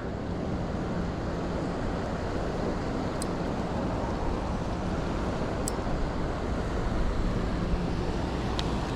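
Steady rushing of water below a flooded river dam, an even roar with no change over the seconds, with a couple of faint clicks.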